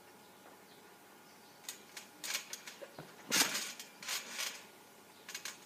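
Trampoline under a back handspring: a string of short rattles and creaks from the frame and springs as she bounces, with the loudest thud about three and a half seconds in as she comes down on the mat, then a few smaller rattles as it settles.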